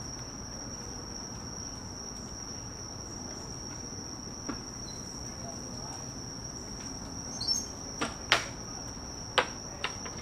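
An acorn dropping from a tree, landing with a few sharp knocks about eight to ten seconds in, the loudest near eight and a half seconds. Crickets keep up a steady high-pitched chirring throughout.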